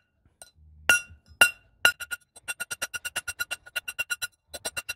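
Ball-peen hammer striking a silver bar on a steel bench block, each blow ringing with a clear metallic pitch as the hand-poured silver is pounded into a bracelet blank. Three heavy blows about half a second apart, then a fast run of lighter strikes about six a second, breaking off briefly and picking up again near the end.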